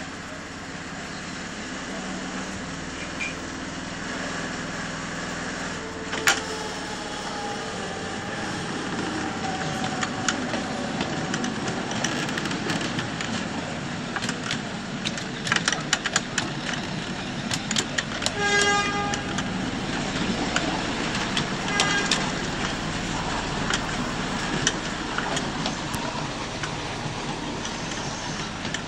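7¼-inch gauge miniature train running along the track: a steady rumble with scattered clicks and knocks from the wheels on the rails. A short toot sounds about two-thirds of the way through, and a fainter one follows a few seconds later.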